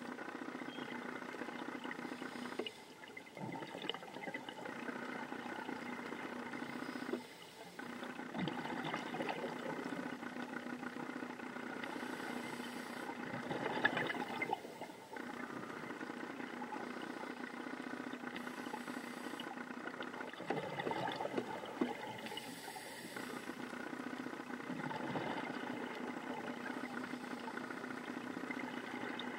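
Underwater recording: bursts of a scuba diver's exhaled bubbles every five seconds or so over a steady mechanical hum.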